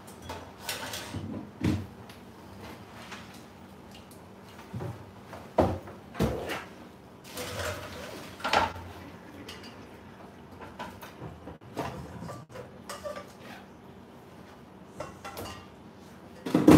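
Kitchen work at a counter: scattered knocks and clatters of utensils and cookware being set down and handled, with a few short scraping rustles between them. The loudest knock comes at the very end.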